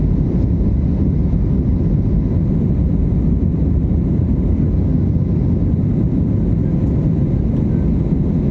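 Steady low rumble of an airliner's jet engines and airflow, heard from inside the passenger cabin.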